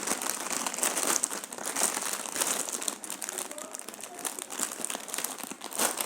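Packaging being crinkled and rustled by hand in irregular bursts as it is handled during an unboxing.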